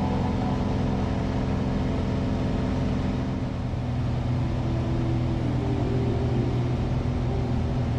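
Steady drone of a single-engine piston light aircraft's engine and propeller, heard from inside the cockpit in cruise flight.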